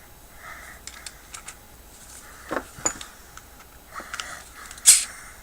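Small metallic clicks and short scraping rasps of a flathead screwdriver working at an outdoor faucet stem, with a sharper clink just before the end.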